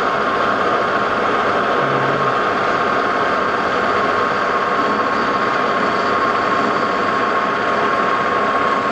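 Metal lathe running steadily while a boring bar cuts inside the bore of a spindle hub, fed by hand; a steady whine sits over the machine noise.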